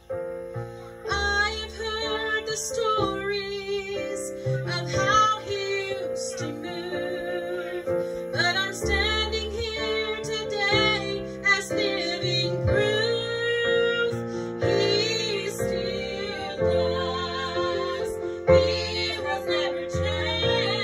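A woman singing a gospel song with vibrato, accompanied on a keyboard playing piano chords. The singing comes in about a second in.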